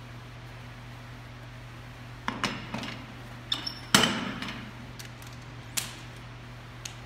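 A 25-pound bumper plate being slid onto a steel barbell sleeve: a run of sharp metal clanks starting about two seconds in. The loudest comes about four seconds in and rings briefly, with two lighter knocks later, over a steady low hum.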